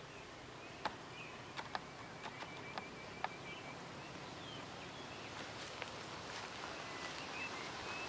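Outdoor ambience: a steady hiss with a thin high tone, a bird's rapid trill lasting a couple of seconds, a few short chirps, and several sharp clicks in the first three seconds.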